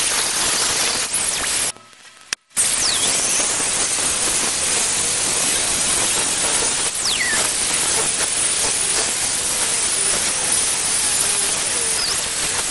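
Handheld angle grinder grinding thick mild steel bar stock, a steady grind with a brief gap about two seconds in.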